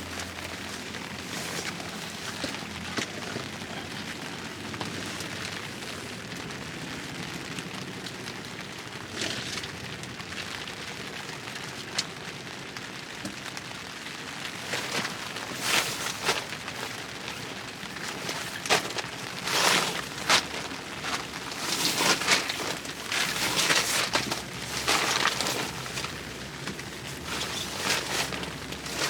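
Rain falling, with sharp drops and splashes crackling close by. The hits grow denser and louder about halfway through.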